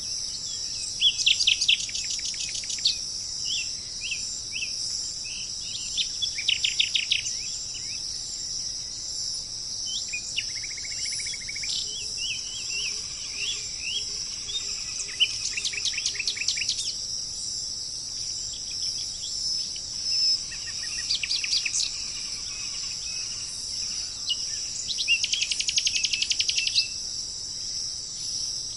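Small songbirds singing in short, rapid chirping phrases every few seconds over a steady high insect drone.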